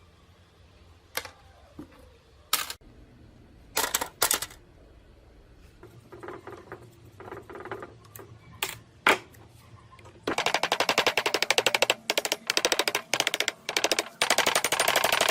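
A few separate metal knocks and clanks, then about ten seconds in a rapid hammering rattle starts in several bursts with short gaps, like a power tool hammering at parts of the machine.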